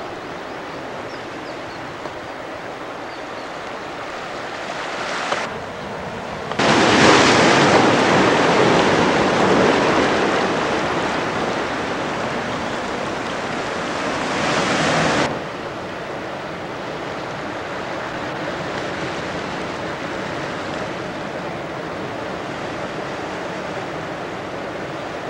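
Ocean surf breaking, heard as a steady rushing noise with some wind on the microphone. Partway through the noise jumps much louder for about eight seconds, then drops back abruptly.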